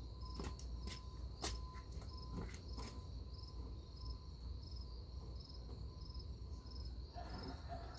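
Insects chirping outdoors: a faint high chirp repeating about twice a second over a steady high trill, with a few soft taps in the first three seconds.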